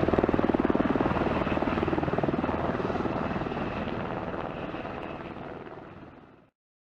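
Sikorsky UH-60 Black Hawk twin-engine helicopter lifting off and hovering low, its four-blade main rotor beating rapidly over a steady engine whine. The sound fades over the last few seconds and cuts off about six and a half seconds in.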